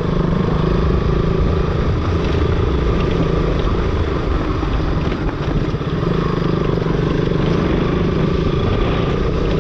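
Motorcycle running at a steady cruise while riding on the road, its engine hum mixed with a dense rush of wind and road noise.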